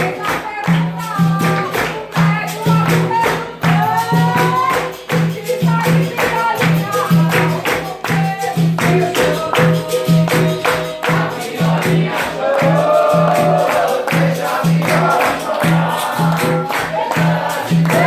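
Capoeira music: berimbau played to a steady pulse with pandeiro (tambourine) jingles and singing.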